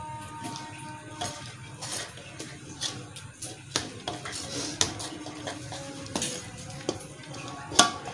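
Metal spatula clinking and scraping against a metal tray and cooking pot as cooked rice is pushed off the tray into the pot, layering the biryani. Sharp clinks come about once a second over a soft scraping, with the loudest knock near the end.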